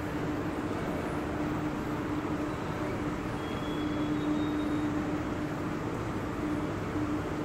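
Escalator running: a steady mechanical hum with a steady low tone through it.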